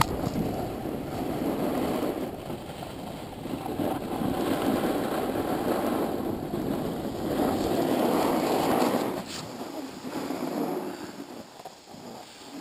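Rushing noise of a downhill run on a groomed piste: the snow scraping and hissing under the moving gear, mixed with wind buffeting the camera microphone, swelling in surges and dying down near the end as the run slows.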